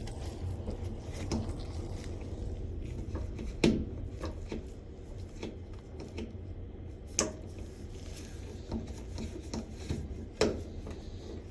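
Hands working on a washing machine's cabinet and parts during reassembly: occasional sharp clicks and knocks of panels and fittings being handled, over a steady low hum.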